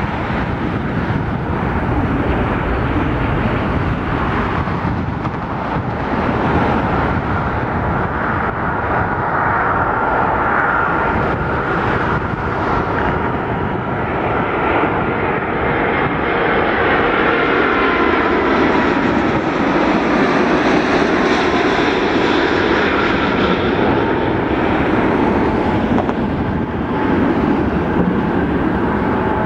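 Jet engines of an Airbus A330-200 airliner on final approach, passing close by: a loud, steady rumble with a whine that slides slowly down in pitch as the plane goes past. The sound is brightest about two-thirds of the way through.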